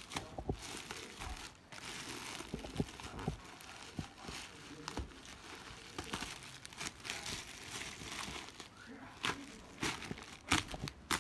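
Plastic courier mailer bag being torn open and pulled off bubble wrap: continuous crinkling and rustling with many sharp crackles, the loudest near the end.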